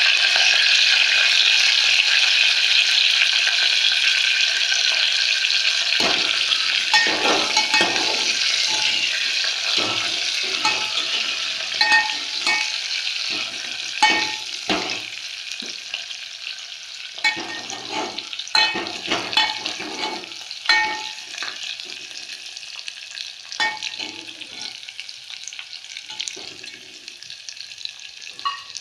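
Garlic, curry leaves and mustard and cumin seeds sizzling in hot oil in an aluminium pot, the sizzle loud at first and gradually dying down. From about six seconds in, a metal spoon scrapes and clinks against the pot as the garlic is stirred.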